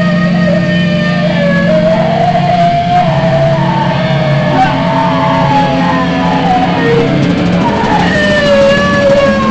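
A live rock band's warm-up noise: several long, slowly wavering and gliding instrumental tones over a steady low drone, loud throughout.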